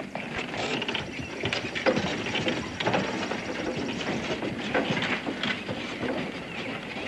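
Horse-drawn carriage moving off: hooves and wooden wheels make a continuous, irregular clatter of many sharp knocks.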